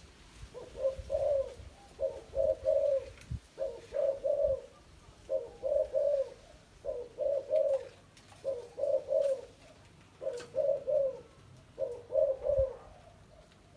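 Spotted dove cooing over and over, a phrase of two or three notes about every second and a half, nine phrases in all.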